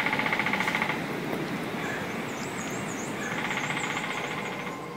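A woodpecker drumming: a rapid roll of taps about a second long, then a second roll about three seconds in. A faint high bird song is heard between the rolls.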